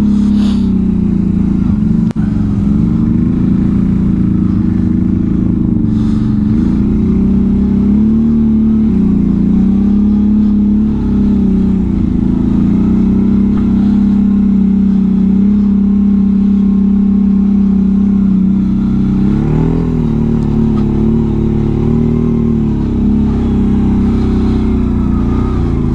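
Can-Am Outlander 1000's V-twin engine running steadily under load as the tracked ATV crawls through deep snow. Its pitch dips briefly a few times as the throttle eases and then picks up again.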